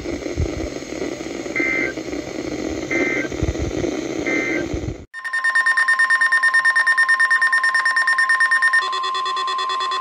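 A weather-band radio hisses with static, with three short data-tone bursts about a second apart: the SAME end-of-message code closing an emergency alert test. About five seconds in, NOAA weather radios sound their alert: a loud tone near 1 kHz with a fast pulsing beep, turning to a steadier layered tone near the end.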